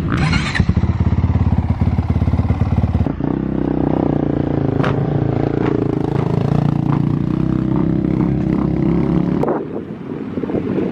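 Dirt bike engines running close by. The engine note changes abruptly about three seconds in and drops away near the end.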